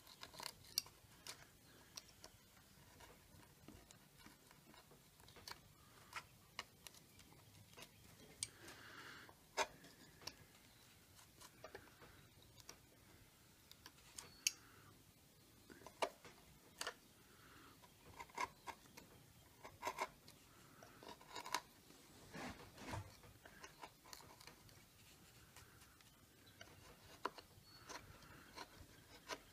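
A carving gouge pushed by hand through wood, paring out small chips: faint, irregular sharp clicks and short slicing scrapes as the edge bites and chips break free.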